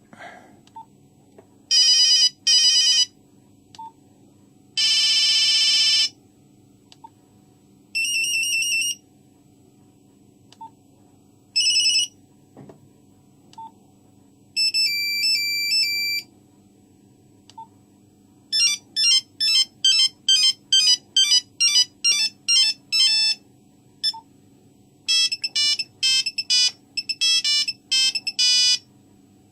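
Nokia 3310 mobile phone playing a series of its monophonic ringtones one after another, with pauses between them: short double beeps, a longer buzzy tone, a two-note warble, then quick melodies of rapid beeping notes in the last third. A faint steady hum lies underneath.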